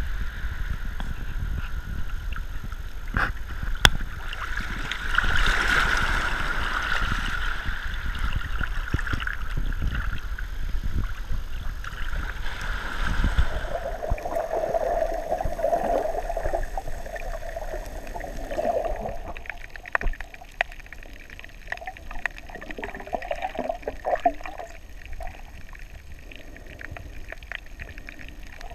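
Water sloshing and gurgling against a camera at the waterline, sounding more muffled once it is under the surface. A wavering hum comes in about halfway through.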